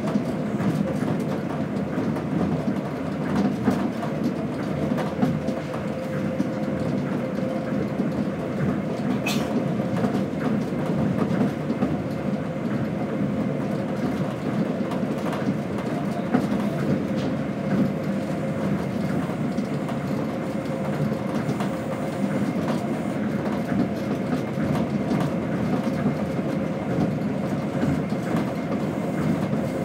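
Tokyo Monorail train running, heard inside the passenger car: a steady rumble from its rubber tyres on the concrete guideway beam, with a faint steady whine and a few light clicks.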